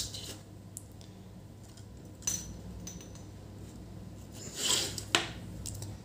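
Hands handling a bare HP ProBook 450 G5 laptop motherboard and its cables and connectors: a few sharp small clicks, about two seconds in and again just after five, with a brief scraping rustle shortly before the last click, over a steady low hum.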